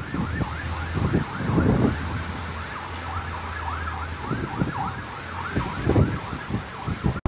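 Emergency vehicle siren in a fast yelp, rising and falling several times a second. Wind gusts rumble on the microphone.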